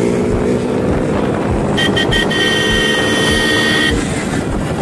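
Vehicle engine running steadily on the road, with a horn sounding about two seconds in: three quick toots, then one long honk of about a second and a half.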